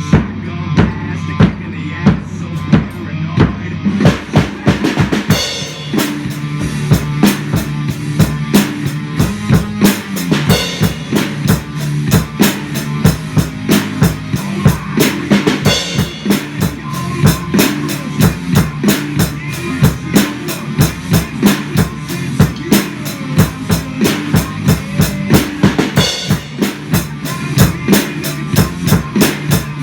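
Hard rock music with a prominent drum kit: driving kick and snare strikes over steady low bass and guitar notes.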